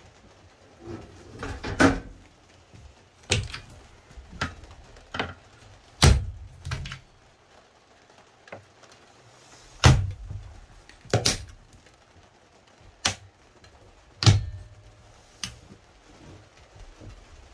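Doors and latches of a small camper trailer's cupboards and fridge being opened and shut: a string of about fifteen sharp knocks and clicks, a second or two apart, some of them loud.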